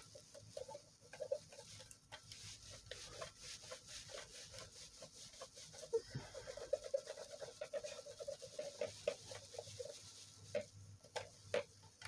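A cloth scrubbing the plastic case of a Sony Dream Machine clock radio: faint, rhythmic squeaky rubs, busiest a few seconds in, mixed with small knocks as the case is handled.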